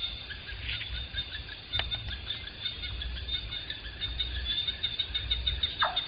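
Forest ambience: birds chirping and calling over a steady high insect drone that pulses rapidly, with a sharp click about two seconds in and a low rumble underneath.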